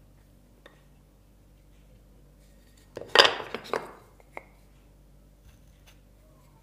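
Wooden blocks being handled on a plywood board: a quick cluster of knocks and scrapes about three seconds in, with a few faint ticks before and a single click after.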